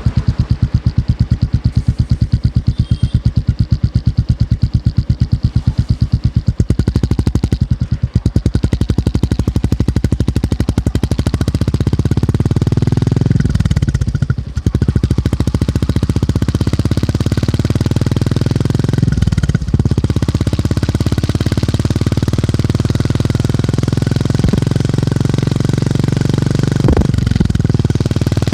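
Motorcycle engine and exhaust thumping at low revs with slow, evenly spaced beats, then picking up speed into a steady run. Twice the note drops briefly, around the middle and about two-thirds of the way in, as gears are changed.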